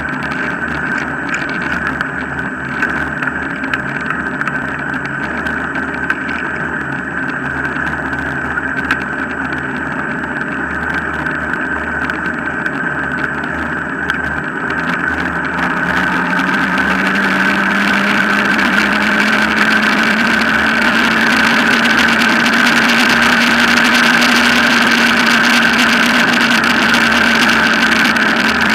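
Wheels of a dog-pulled rig rolling on a tarmac path with a steady whir. About halfway through, the noise gets louder and a hum comes in that rises slightly in pitch.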